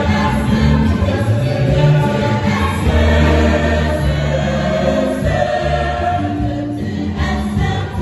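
Mixed choir of men's and women's voices singing a hymn, several voice parts sounding together.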